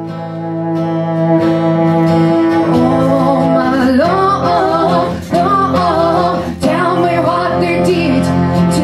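Acoustic guitar and bowed cello playing a song live, with long held notes at first; a woman's voice begins singing over them about three seconds in.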